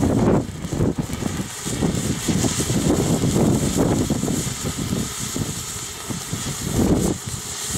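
Ground fountain firework spraying with a steady hiss, over irregular low rumbling.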